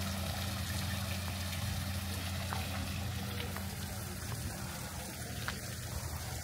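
Water from a tiered stone fountain splashing and trickling steadily, with a steady low hum underneath.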